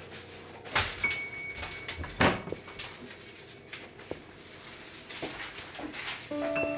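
Kitchen clatter: a string of knocks from cupboards and dishes being handled at the counter, the loudest about two seconds in. Near the end comes a ringing clink of crockery.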